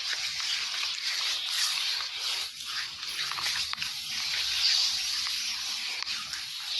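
Hands rubbing massage oil into a man's hair and scalp, close to the microphone: a steady hiss-like rubbing with no breaks.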